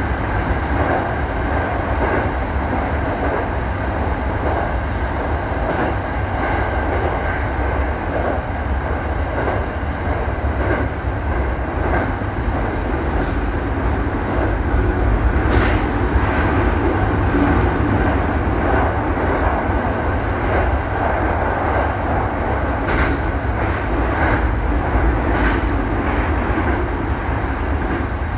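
Commuter train running through a tunnel, heard from the cab: a steady rumble of wheels on rail, with the clack of the wheels crossing rail joints now and then. This stretch is laid with jointed rail, not continuous welded rail.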